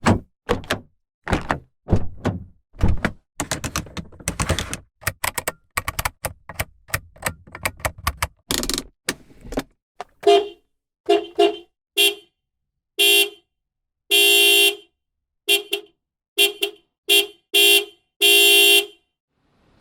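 A run of sharp knocks and clicks, then a car horn sounding over and over from about ten seconds in, in short honks and a few longer blasts.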